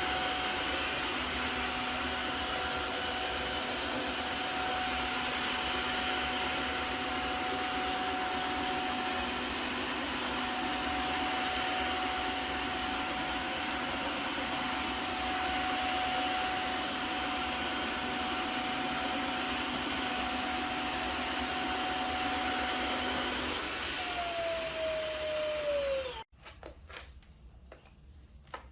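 Tineco Floor One F3 cordless wet-dry vacuum running steadily with a constant whine. About 24 seconds in its motor winds down, falling in pitch, and stops abruptly a couple of seconds later, followed by a few faint clicks.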